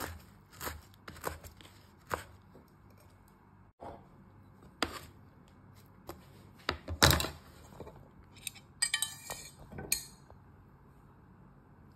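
A serrated kitchen knife chopping rice noodles on a wooden cutting board: a few quick strokes at the start, then scattered knocks with a loud one about seven seconds in. Shortly after, a brief crackling rustle as the chopped noodles are dropped into a glass mixing bowl.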